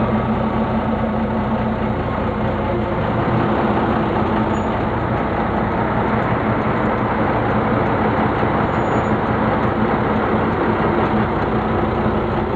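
Engine of an open-cab vintage fire truck running steadily with a constant low hum, heard from inside the open cab as it rolls slowly.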